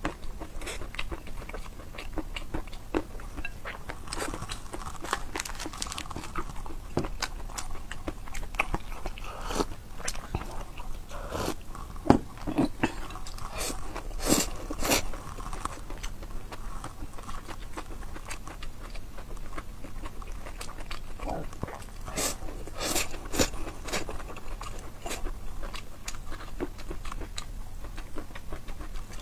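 Close-miked eating: a person biting and chewing food, with many sharp crunches and mouth smacks, busiest in two stretches in the middle and towards the end.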